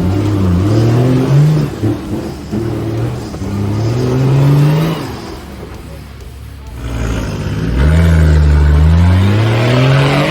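Four-wheel-drive vehicle's engine revving in repeated rising pulls: a short rev near the start, a longer climbing one a few seconds in, then after a brief easing-off the loudest and longest rise toward the end.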